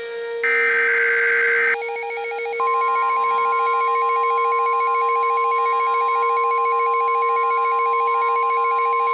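NOAA Weather Radio emergency alert signalling: a burst of SAME header data ends near the two-second mark. A rapidly pulsing alarm tone follows, joined about a second later by the steady warning alarm tone that announces a new warning broadcast.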